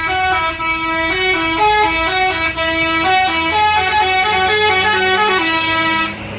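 Telolet basuri multi-tone bus horn playing a tune of stepped, held notes that changes pitch every half second or so, then cuts off suddenly near the end.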